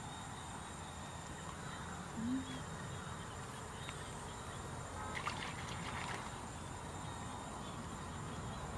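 Outdoor background hiss with a faint steady high whine. About two seconds in comes a short low hum, and around five to six seconds in a cluster of clicks and rustles from a digging tool working into a muddy stream bank among grass.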